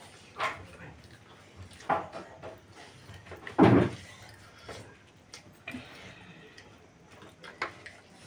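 Noodles being slurped and eaten, in several short separate bursts, the loudest about three and a half seconds in, with a few light clicks of forks against plates in between.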